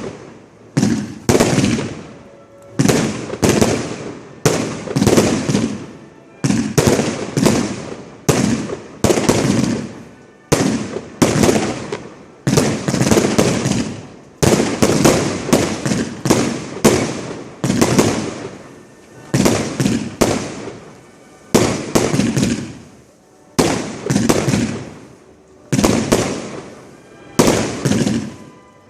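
Fireworks display heard close to the firing site: shells launching and bursting in rapid succession, about one to two sharp bangs a second, each followed by a fading rumble.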